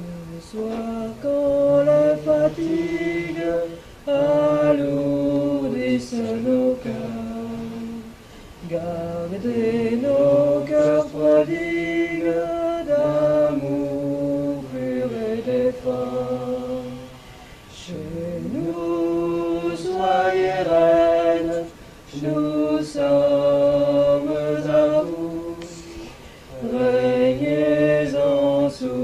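Devotional mantra chanting sung by voices, in phrases of a few seconds with short breaks between.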